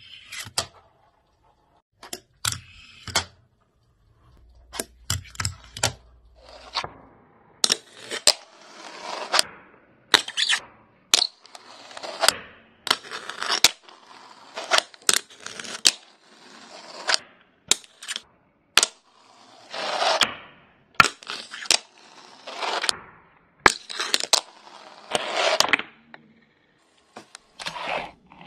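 Fingerboard tricks: sharp clicks of the miniature skateboard's tail popping and its wheels landing, with the rasp of its small wheels rolling along the surface between the clicks.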